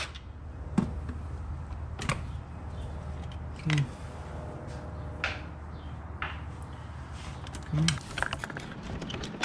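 Scattered light clicks and taps of a gloved hand handling parts in a car's engine bay, over a steady low hum that stops about eight seconds in.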